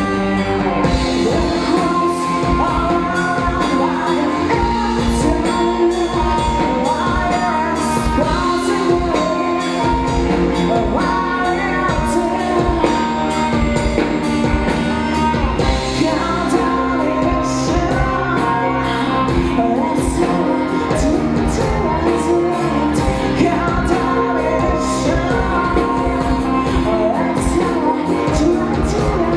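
Live rock band playing loud: a woman singing into a microphone over distorted electric guitar, bass guitar and a drum kit with steady cymbal strokes.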